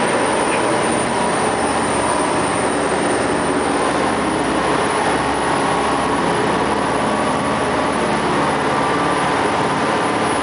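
Sportfishing boat running at speed: a loud, steady mix of engine noise and rushing wind and water that does not change.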